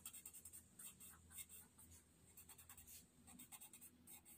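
Faint, irregular short strokes of a paper blending stump (tortillon) rubbing pencil graphite into the paper of a Zentangle tile, smoothing the shading.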